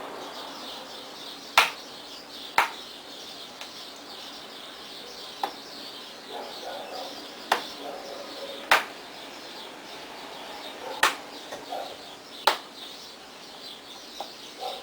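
Plastic screen bezel of a Dell Studio XPS 1640 laptop being pressed back on by hand, its clips snapping into place: about seven sharp clicks, irregularly spaced. Birds chirp faintly in the background.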